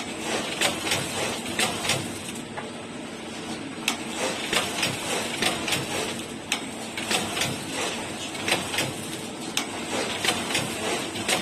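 EBX7 paper label applicator machine running: a steady mechanical hum under sharp clicks, about two a second and unevenly spaced, as it dispenses labels.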